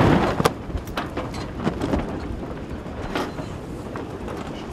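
Wind rushing over the microphone and water noise aboard a sailing yacht under way, loudest in the first half second, with a few sharp knocks scattered through.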